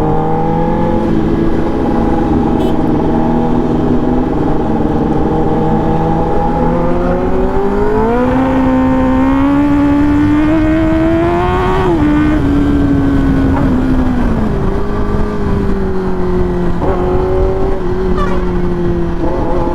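Kawasaki Ninja ZX-10R inline-four engine on its stock exhaust, heard from the rider over wind noise while riding in traffic. It runs steady, climbs in revs from about eight seconds in, drops with a gear change near twelve seconds, eases off around fourteen seconds, then settles to a steady cruise.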